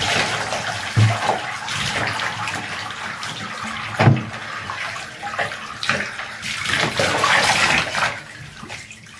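Water poured from a plastic jug over a dog standing in a bathtub, splashing and running off into the bathwater as she is rinsed. A knock comes about a second in and a louder one about four seconds in; the splashing quietens near the end.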